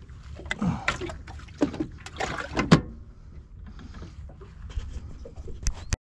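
Knocks and thumps as a freshly caught trevally is put into a fibreglass deck hatch on a small boat and the lid is handled, the loudest thump a little under three seconds in, over a steady low rumble. A couple of clicks, then the sound cuts off suddenly near the end.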